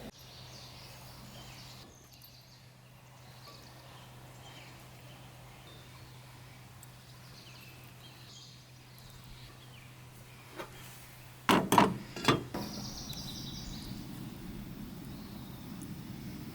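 Quiet outdoor ambience with faint bird chirps, then a few loud sharp knocks about twelve seconds in, followed by a louder rustling noise.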